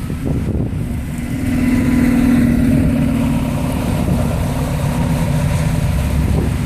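A motor vehicle's engine running with a steady hum, strongest about a second into the sound and fading somewhat after the middle.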